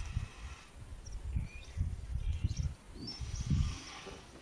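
Irregular low rumbling pulses, strongest about two and three and a half seconds in, with small birds chirping now and then in the background.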